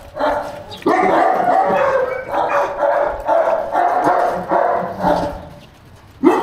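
A dog barking repeatedly, the barks coming about two a second and stopping about a second before a short sharp knock near the end.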